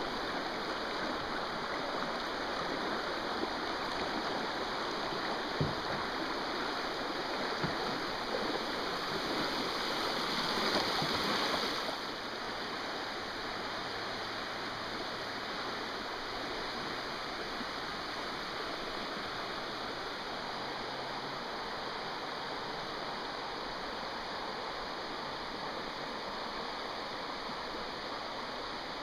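River water rushing over a shallow riffle: a steady hiss that drops a little about twelve seconds in, with a few faint knocks early on.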